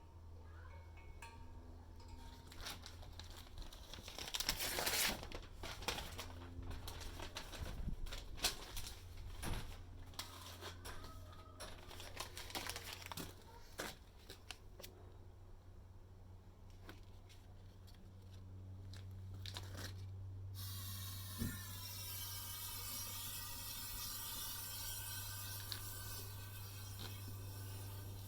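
Scattered clicks, knocks and rustling from handling the furnace setup over a low steady hum, then, about two-thirds of the way through, a steady hiss starts suddenly as the homemade furnace's burner is turned on.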